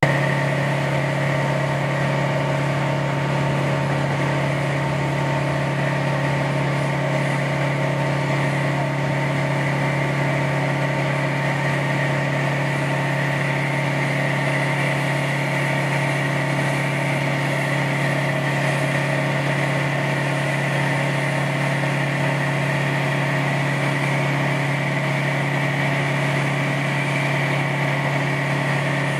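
Airport crash tender's engine running steadily under pump load while its roof monitor sprays foam: one constant low drone with an even hiss over it, unchanging throughout.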